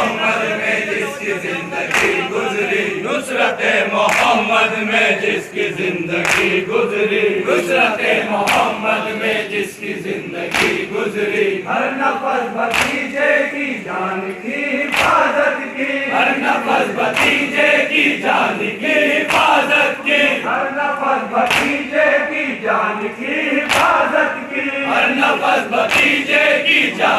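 A large crowd of men chanting a Muharram noha (mourning lament) in unison, with sharp slaps of matam, hands striking chests together, about every two seconds.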